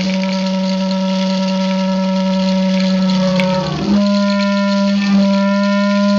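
A steady droning tone with a stack of overtones; a little past halfway its pitch bends down and then snaps back up to the same note.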